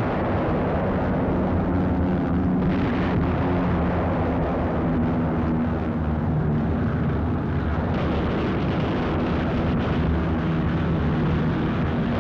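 Aircraft engines drone steadily under rough, rumbling noise, as on a wartime newsreel sound track.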